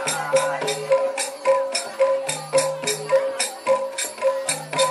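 Javanese gamelan music accompanying a jathilan horse dance: a repeating pattern of pitched metal notes over a recurring low note, with a bright rattling jingle struck about three times a second.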